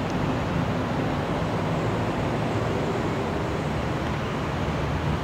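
Steady rushing background noise with a low rumble, even throughout, of the kind made by distant traffic or wind.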